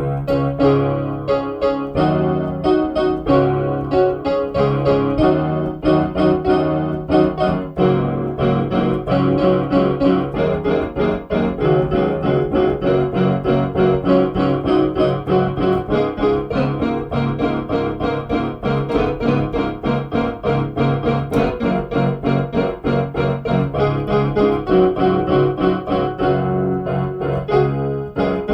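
Background music played on an electronic keyboard with a piano voice: a steady stream of notes and chords.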